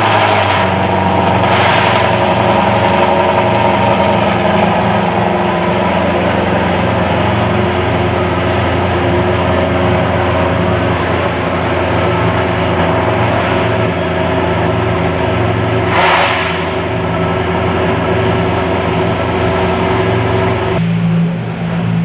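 Maserati GranTurismo MC Trofeo race car's V8 engine running loudly at steady revs, with two brief bursts of noise, about a second and a half in and near the 16-second mark. The engine note drops and changes shortly before the end.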